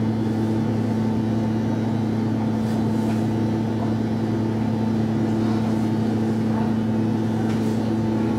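Steady hum inside a Stockholm Metro C14 subway car, holding one even pitch throughout, with a few faint clicks.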